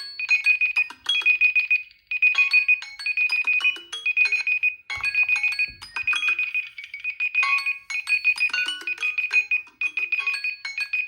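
Smartphone alarm tone: a quick melody of short, bright notes over a rapid high beeping, in phrases about a second long that repeat over and over.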